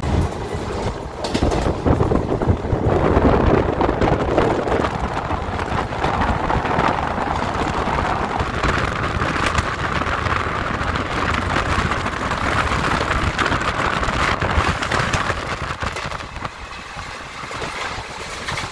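Passenger train running along the line: a steady rumble and rush of wheel and wind noise from aboard the coach, with wind buffeting the microphone.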